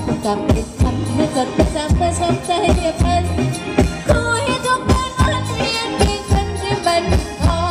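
Live Thai ramwong dance band playing, a drum kit keeping a steady beat of about two strokes a second under a melody line.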